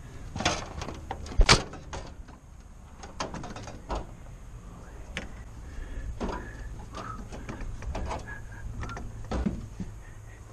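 A run of knocks and clanks from handling gear on a pontoon boat deck, the loudest about one and a half seconds in, with a few short squeaks in the middle.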